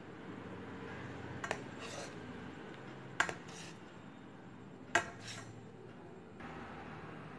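Kitchen knife cutting a set gram-flour (besan) slab on a stainless steel plate. The blade clicks sharply against the steel three times, about one and a half to two seconds apart, each click followed by a fainter tick.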